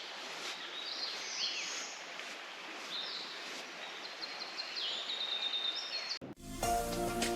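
Several birds chirping and trilling over a steady outdoor hiss. About six seconds in, this cuts off suddenly and music begins.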